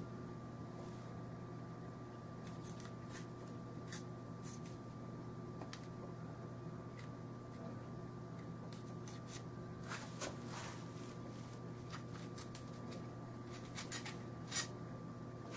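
Scattered small clicks and rubbing as SKS rifle parts and cleaning tools are handled, with a sharper run of clicks near the end, over a steady background hum.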